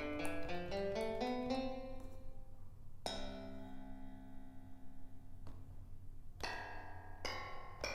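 Notes played on the EASYPLAY 1s keyboard's built-in sounds. There is a quick rising run of notes, then a held chord from about three seconds in, then a few more struck notes and chords near the end.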